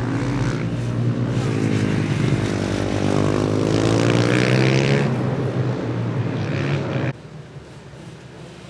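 Supermoto motorcycle engine running on track, its pitch falling and then climbing again around the middle as the rider eases off and gets back on the throttle. It cuts off abruptly about seven seconds in, leaving a much quieter background.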